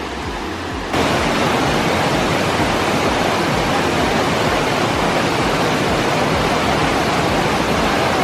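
Steady rushing of a waterfall, starting abruptly about a second in after a quieter stretch.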